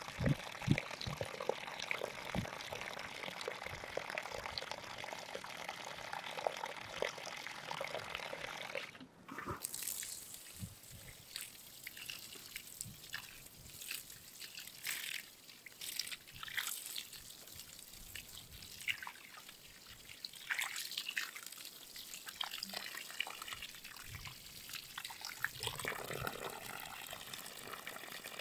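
Water pouring in a thin stream onto loose, freshly dug soil around a newly planted sapling, splashing and trickling. The pour stops abruptly about nine seconds in and gives way to lighter scattered sounds. Near the end water pours again from a plastic watering can onto the planting hole.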